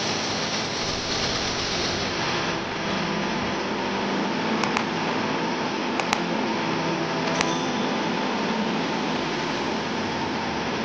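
Steady rushing noise of compressed-air equipment, an air compressor and air hose, with four short sharp clicks near the middle.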